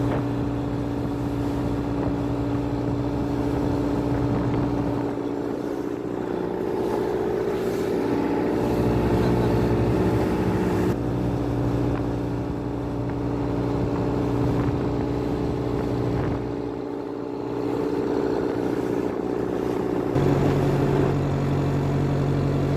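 A vehicle engine running steadily, its pitch and level shifting abruptly a few times, with a step to a different note near the end.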